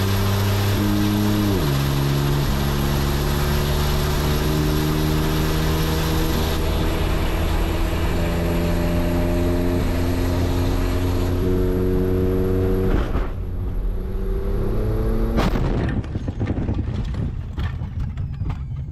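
A remote-controlled jet car running flat out, heard from inside the cabin. The engine note drops at a gear change about a second and a half in, then climbs in steps. Late on the engine note falls away, and a loud impact follows, the car landing hard in its crash, with rattling and clattering after it.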